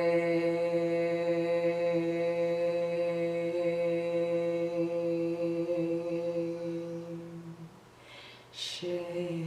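A woman's voice chanting the qigong heart healing sound "Xing" as one long, steady held tone that fades out after about seven and a half seconds. Near the end a short breathy hiss opens the next "Xing".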